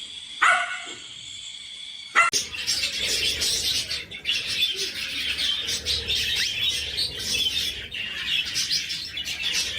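Many small birds chirping together, starting abruptly about two seconds in and going on without a break.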